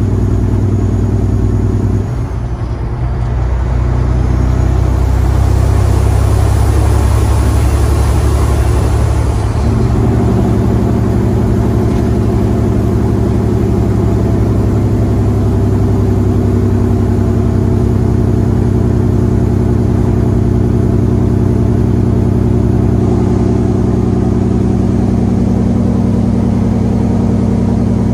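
Caterpillar C15 Acert diesel of a 2011 Peterbilt 389 running while the truck is driven. It dips briefly about two seconds in and is louder, with a rushing sound, from about four to ten seconds. The note then changes and it settles into a steady drone.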